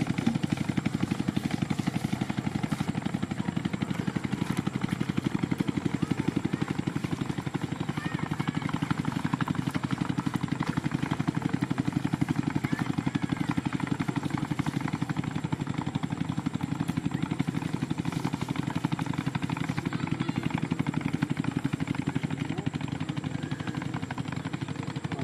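A small engine running steadily, with a fast, even beat that neither rises nor falls.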